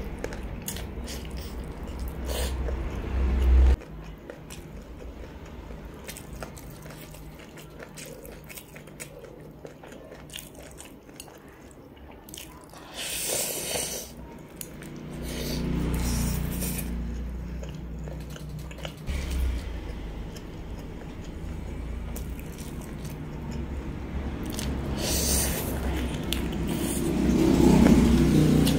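Close-miked eating of fried chicken wing: flesh torn from the bone, then bitten and chewed with wet mouth clicks and smacks. It grows louder near the end.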